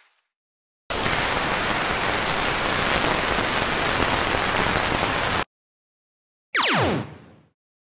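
Cartoon sound effect: a steady, static-like hiss starts about a second in and cuts off suddenly some four and a half seconds later. Near the end, a quick downward-sliding tone fades out.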